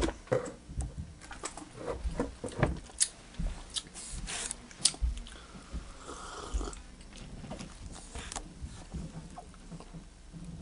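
Mouth sounds of someone tasting cola: a sip from a plastic cup about halfway through, swallowing, and lip smacks, among small clicks and knocks.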